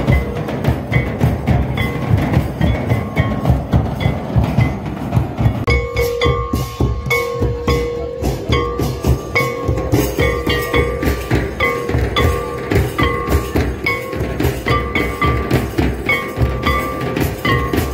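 Live folk dance music: drums beating a fast, steady rhythm, with a short high melodic phrase repeating over them that comes through more clearly about six seconds in.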